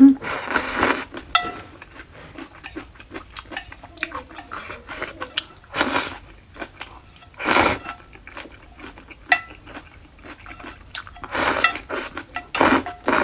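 Eating utensils clinking and scraping against a bowl during a meal of noodles and pickles, many small clicks with a few louder bursts about six, seven and a half, and twelve seconds in.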